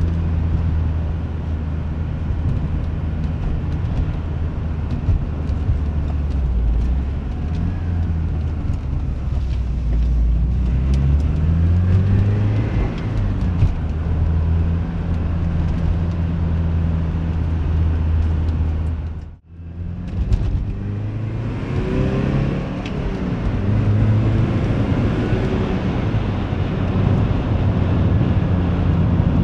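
Porsche 944's four-cylinder engine running on the road with tyre and road noise. The engine note rises under acceleration about 11 seconds in and again after about 21 seconds, and the sound briefly cuts out about 19 seconds in.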